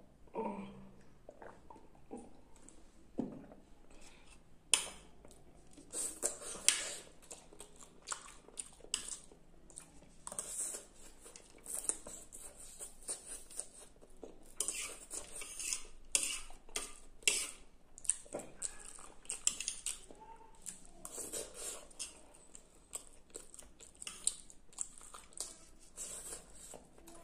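Metal spoon clinking and scraping against a plate as noodles are scooped up, with close-up slurping and chewing of noodles in between.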